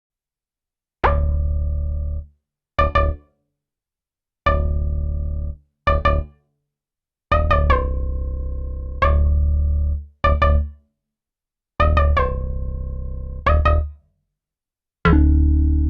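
Modal Electronics Cobalt8 virtual analog synthesizer playing a bass-heavy patch with sharp, bright note attacks. Longer held notes alternate with quick short stabs, with brief silences between the phrases.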